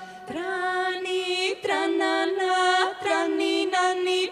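Women's klapa group singing a cappella in close harmony: held chords sung in short phrases that break about every second and a half.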